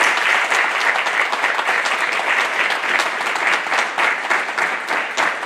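Audience applauding: a crowd of people clapping steadily.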